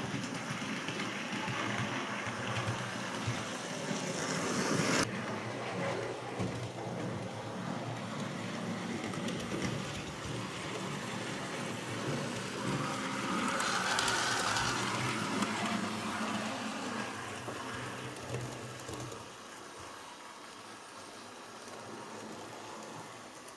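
Model trains running on a model railway layout, a steady rolling rattle of wheels on track. It swells as a train passes close to the microphone about halfway through, then eases off.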